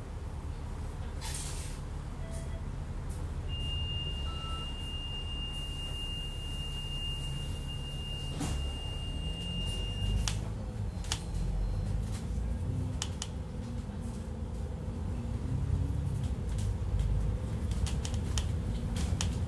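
Inside the upper deck of a double-decker bus under way: a steady low engine rumble with frequent short rattles and clicks from the bus body and fittings. The engine note climbs about halfway through. A single steady high tone sounds for several seconds in the first half.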